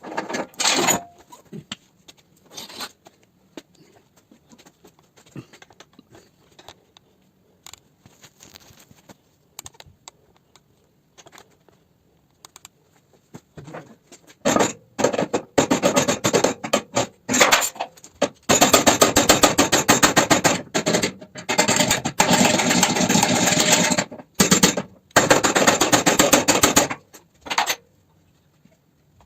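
Abrasive scraping on metal in bursts of several seconds, loud and harsh, with a short burst at the start and a long run of strokes through the second half.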